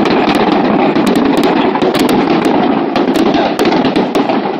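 Fireworks display going off in a dense, unbroken barrage of rapid bangs and crackles, many overlapping per second.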